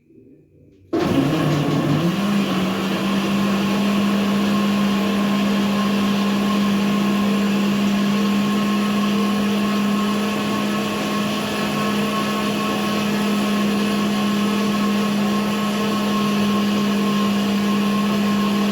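Electric countertop blender switched on about a second in, puréeing cooked butternut squash soup: its motor pitch steps up shortly after starting, then it runs loud and steady.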